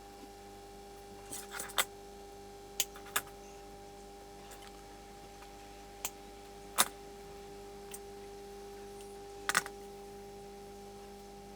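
Irregular sharp clicks and snips of a moulded coax TV plug and cable being cut into with cutters and a knife, over a steady electrical hum.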